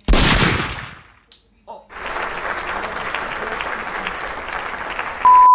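A twisted plastic bottle's cap blowing off with a sudden loud pop and a rush of compressed air that fades over about a second. Clapping follows for about three seconds, and a loud steady beep sounds near the end.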